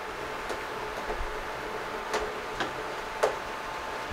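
Silicone spatula stirring melted chocolate in a glass bowl over a pot of simmering water, with a few sharp clicks against the glass, the loudest a little past three seconds in, over a steady hiss and faint hum.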